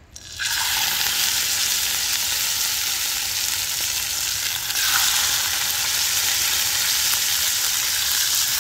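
Pieces of squirrel meat sizzling in a hot skillet: a loud, steady frying hiss starts as the first piece goes in, and swells again about five seconds in as a second piece is added.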